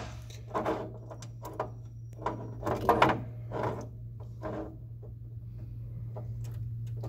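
Irregular small clicks and scrapes of wires and crimped terminals being handled and slid under the screw terminals of a circuit board's terminal block, over a steady low hum.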